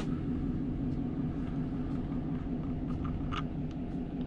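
A steady low mechanical rumble and hum from a running machine, with a light click about three seconds in.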